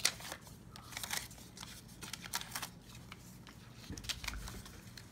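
Paper masks made from sticky notes being lifted off a stamped card and pushed aside: light paper rustles and small taps, with a soft low thump about four seconds in.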